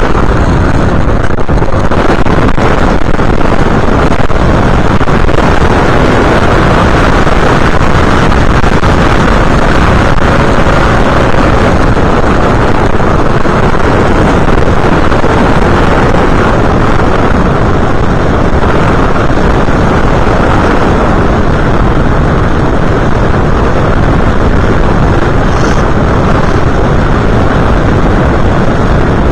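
Loud, steady rush of wind over an FPV model aircraft's onboard camera microphone in flight, mixed with the craft's motor and propeller noise.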